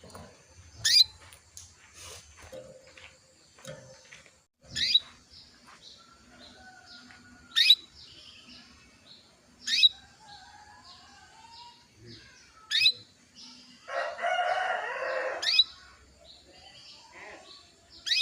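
Female canary giving short, sharp chirps that sweep downward, repeated about every two to three seconds, with fainter twittering between them; these are the calls of a hen in breeding condition, used to call and stimulate males. About fourteen seconds in, a louder, harsher call lasts about a second and a half.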